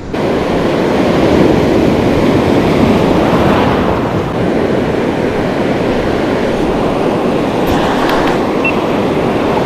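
Steady rushing of surf and wind along the beach, a loud even noise that starts abruptly and holds without a break.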